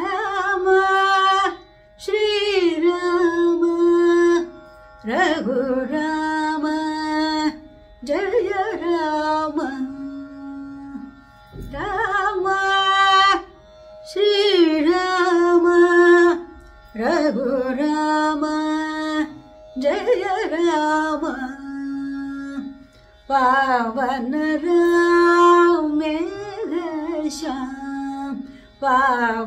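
A woman singing a Carnatic devotional song in raga Yaman Kalyani, solo voice in phrases of a few seconds with short breaks, her notes wavering in ornamented glides, over a faint steady drone.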